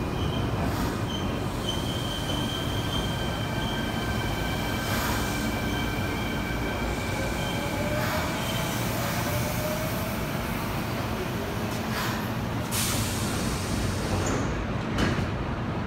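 Kintetsu electric commuter train pulling out of the station, its motors whining steadily and a lower whine rising in pitch as it gathers speed. Wheel rumble and a few sharp knocks run under it.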